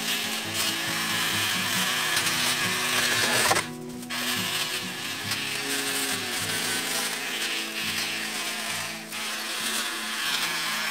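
Cordless electric pole cutting tool running with a high whine as it cuts through grass and bamboo regrowth. It stops for a moment about a third of the way in and then starts again. Background music plays under it.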